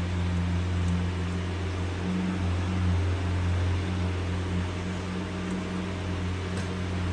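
Steady low mechanical hum: a deep, even drone with faint noise over it, unchanged throughout.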